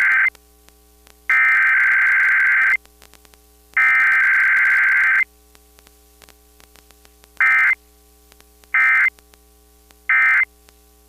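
Emergency Alert System SAME digital data tones from a radio station's required weekly test. A long, harsh, buzzing burst ends just after the start, two more long header bursts follow, and then three short end-of-message bursts come about a second and a half apart.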